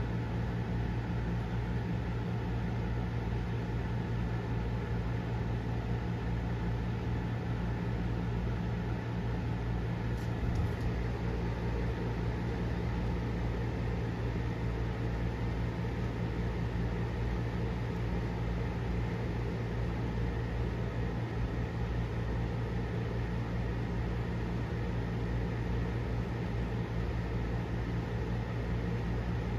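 Steady low machine hum with a faint hiss, unchanging throughout; a single faint click about ten seconds in.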